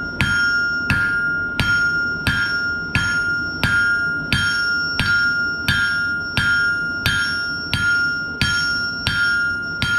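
Hand hammer striking hot steel on an anvil in steady blows, about one and a half a second, flattening a leaf blank. The anvil rings on with a clear high tone between blows.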